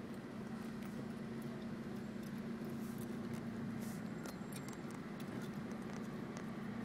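Steady running noise of a vehicle on the road: a low engine hum over a wash of road noise, with a few faint clicks.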